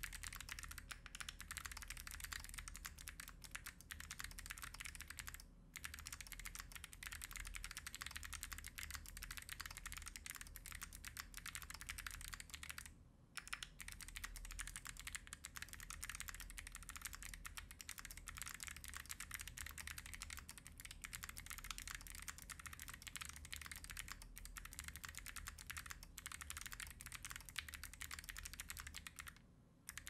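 Continuous typing on a Mars80 mechanical keyboard with lubed Kailh Box Jade clicky switches on an aluminum plate: a dense stream of sharp key clicks with a few brief pauses. It sounds faint and muted because the microphone is far from the keyboard.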